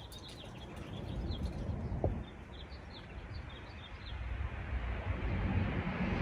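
Small birds chirping in quick repeated notes over a low outdoor rumble, with a brief sharp sound about two seconds in; the rumble grows louder near the end.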